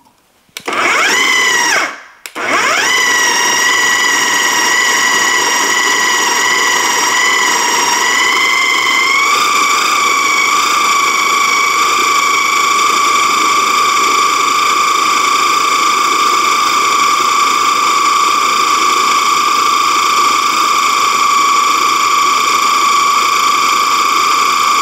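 KitchenAid food processor motor blending tomatoes, red kidney beans, onions and peppers into a smooth chili base. It spins up with a rising whine, stops after about a second and a half, then restarts and runs steadily. Its pitch steps up slightly about nine seconds in.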